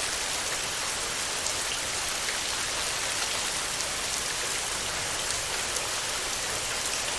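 Heavy rain falling steadily on a tin roof, a constant hiss with scattered drop ticks.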